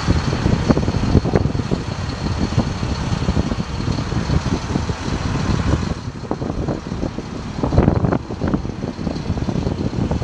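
Bucket truck's engine running at idle to power the aerial boom's hydraulics, with uneven gusting rumble from wind on the microphone.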